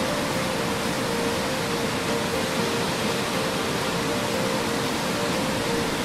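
Waterfall pouring into a pool: a steady, even rush of falling water. Faint held music tones are heard near the start and near the end.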